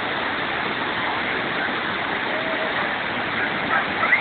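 Steady rush of floodwater pouring down in a torrent after heavy rain.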